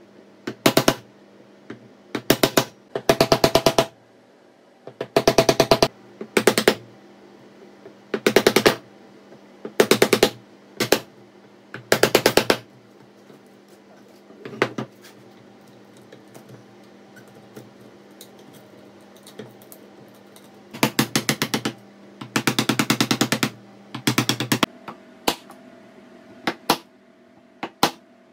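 Hand tool cutting or shaping wood in short bursts of rapid rasping strokes. Each burst lasts well under a second, and they come in clusters with pauses between. A steady low hum runs underneath.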